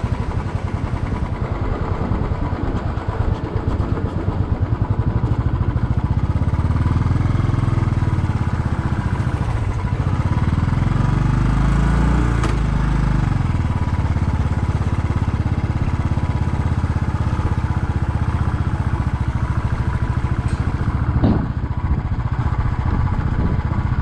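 Motorcycle engine running steadily as the bike is ridden over a rough broken road. A low rumble swells for a few seconds around the middle, and there is one short sharp knock about 21 seconds in.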